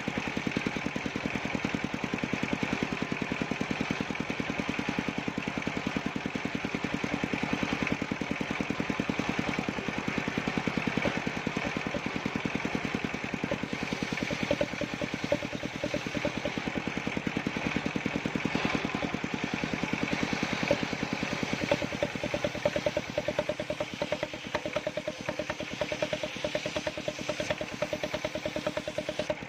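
Small engine running steadily at an even idle, its firing pulses coming rapidly and regularly without any change in speed.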